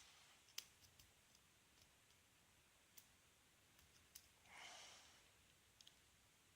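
Faint, scattered clicks of a lock pick and tension wrench working the pin tumblers of a Yale Y221/52 padlock, the lock in a false set just before it opens. A soft breath sounds about four and a half seconds in.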